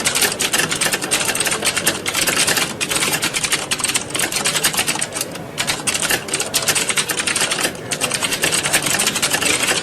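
Many computer keyboards being typed on at once: a dense, unbroken clatter of key clicks, thinning briefly about halfway through.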